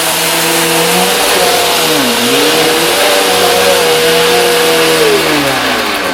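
Bissell CleanView Helix upright vacuum cleaner running while picking up debris: a loud rushing hiss with a steady whine, its motor pitch wavering under load. About five seconds in, the whine drops in pitch and the sound fades as the motor winds down.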